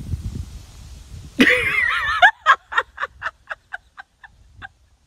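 A woman bursts out laughing: a high, wavering squeal, then a run of short laughs at about four a second that fade away. Before it there is a low rumbling on the microphone.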